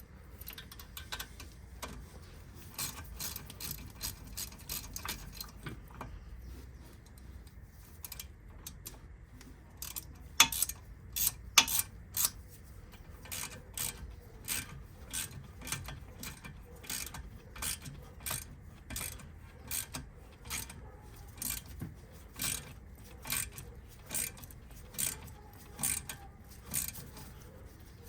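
Ratchet wrench clicking as it is worked on the car's front brake assembly: irregular clicks at first, a few louder metal knocks about ten seconds in, then a steady clicking about once a second.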